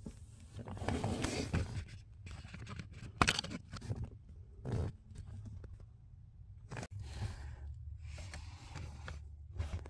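Hands rustling and scraping against the plastic trim under a car's dashboard while the OBD-II port flap is opened, with a sharp click about three seconds in and a few duller knocks after.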